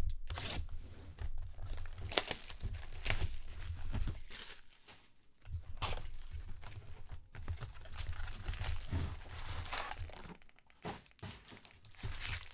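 Trading card packaging being torn open and crinkled: wrappers and plastic ripped and handled in irregular bursts of rustling, with two brief pauses.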